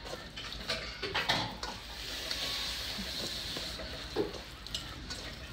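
Gloved hand squishing and kneading a wet, finely ground pork filling with wood ear mushrooms and glass noodles in a stainless steel bowl. It starts with irregular squelches, then turns into a steadier wet rustle of mixing.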